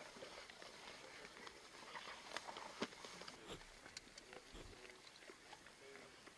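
African wild dogs feeding on an impala carcass: faint, scattered crunching and tearing clicks.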